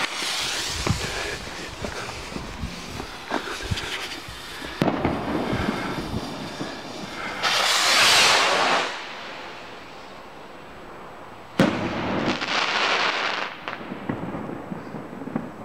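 Epic Fireworks Puma rocket: fizzing and crackling for the first few seconds, then a loud whoosh as it launches about eight seconds in. A sharp bang follows a few seconds later, then crackling as its stars burst.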